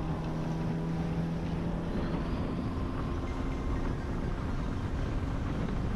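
Boat motor running steadily underway, its hum changing pitch about two seconds in, with wind buffeting the microphone.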